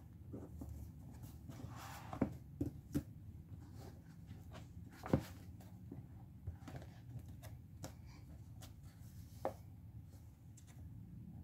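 Ballpoint pen writing and tapping on a paper workbook, with the pages rustled and turned midway and scattered light knocks of the pen and hands on the desk.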